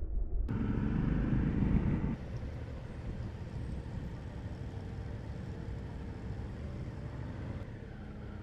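Motorcycle running at road speed with wind noise: a louder low rumble for the first couple of seconds, then a steady drone.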